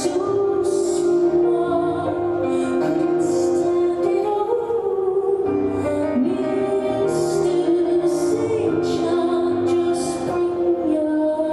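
Slow, soft music with a singing voice on long held notes.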